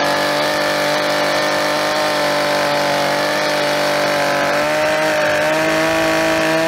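Two-stroke chainsaw running steadily at high revs while its bar cuts through a hewn log wall, with the pitch rising slightly about five seconds in.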